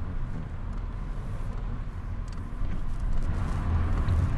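Car engine and road noise heard from inside the cabin while driving: a steady low rumble that grows a little louder about two-thirds of the way through.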